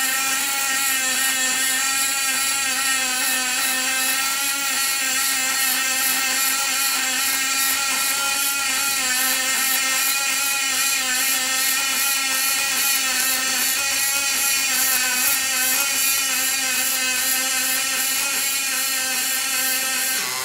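Robotic MIG welding arc running steadily on an aluminium radiator seam: a continuous buzz with a clear, even pitch.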